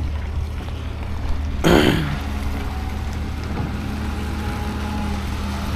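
Diesel engine of a Caterpillar wheel loader running as the loader drives forward carrying a pickup truck on its forks, a steady low drone with a steady engine tone coming in about three seconds in. A short loud rush of noise sounds about two seconds in.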